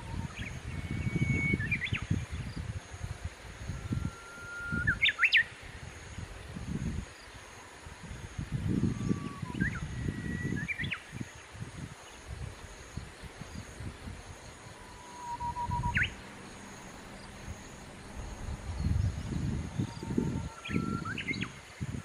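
A songbird singing a whistled phrase about every five seconds, five times in all: a held note, then a quick flourish of sharp rising notes. Between and under the songs, a low gusty rumble of wind on the microphone comes and goes.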